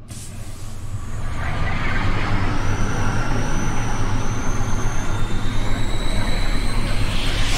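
Logo-ident sound design for a DVD distributor's intro: a deep, steady space rumble that swells up from silence over the first couple of seconds, with a rushing hiss and thin high whistling tones gliding slowly above it.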